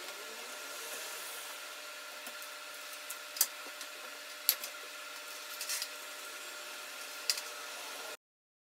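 A few sharp, light clicks and taps from laptop parts being handled during reassembly, over a steady background hum; the sound cuts off suddenly near the end.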